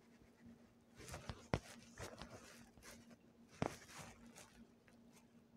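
Quiet room sound with a faint steady hum, two sharp taps about two seconds apart and a few soft brushing noises: fingers tapping and sliding on a phone touchscreen while drawing and zooming.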